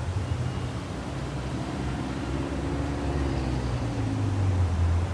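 A steady low rumble with a hiss, like wind or distant city noise, with faint held tones rising and falling in the middle.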